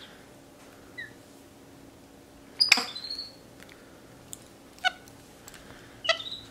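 Capuchin monkeys giving about four short, high-pitched chirps and squeaks a second or two apart. The loudest, a little under three seconds in, is a sharp sound followed by a high squeal.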